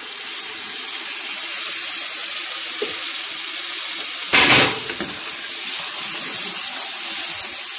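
Ground masala paste sizzling in hot oil in a frying pan, a steady hiss with one louder burst of sizzling about halfway through.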